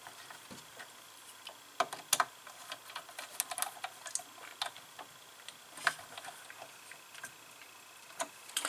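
Small screwdriver and wire ends working the screw terminals of a CNC controller board: light, irregular clicks and ticks a second or so apart.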